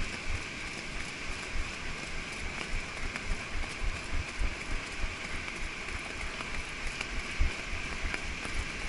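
Horse walking on packed beach sand, soft hoofbeats and tack jingle under irregular wind buffeting on the head-mounted microphone, over a steady hiss of surf.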